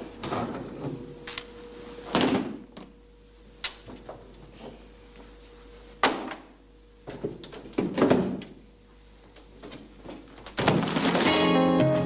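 Cases being shifted and opened in a car boot: a few separate knocks and thuds with some clicking. Music comes in near the end.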